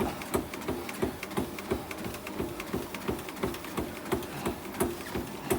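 Running footfalls on a treadmill, a steady beat of about three strides a second.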